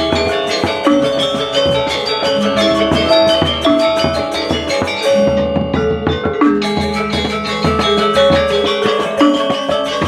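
Balinese gamelan gong ensemble playing a tabuh telu lelambatan piece: bronze metallophones ring out a struck melody in a steady rhythm over kendang drums. The bright high clatter thins out for about a second midway.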